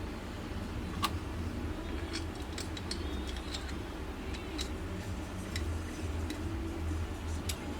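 Scattered light metallic clicks and ticks, the sharpest about a second in, over a steady low hum.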